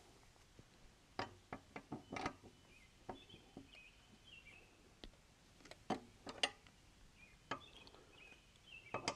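Wrench and socket tightening a lawn mower blade bolt: scattered metallic clicks and knocks at irregular spacing. Birds chirp faintly now and then.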